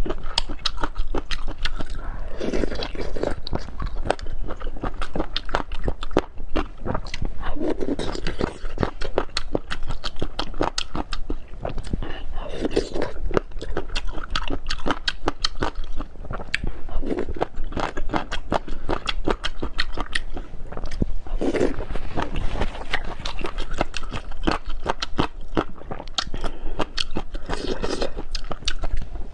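Close-miked chewing and biting of sauced boneless chicken feet, with a dense run of wet, crunchy clicks throughout and a fuller, lower mouth sound about every four or five seconds.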